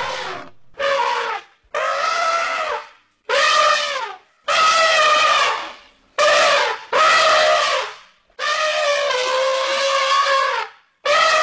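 African elephants trumpeting: a run of about eight loud, brassy calls, each half a second to two seconds long, separated by short gaps. The herd calling excitedly around a calf being born.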